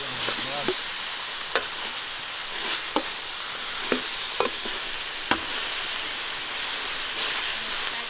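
Large pieces of beef sizzling in hot fat in a big wok, with a metal spatula clicking and scraping against the pan about five times as the meat is pushed and turned.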